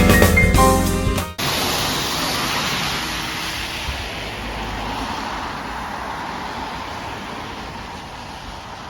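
Background music with piano and drums cuts off abruptly about a second in, giving way to the steady rushing noise of a moving city bus, which slowly eases.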